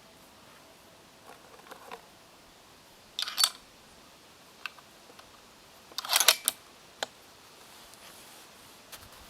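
Sharp metallic clicks and rattles from handling the rifle: a short cluster about three seconds in, a few single ticks, and a louder cluster about six seconds in. No shot is fired.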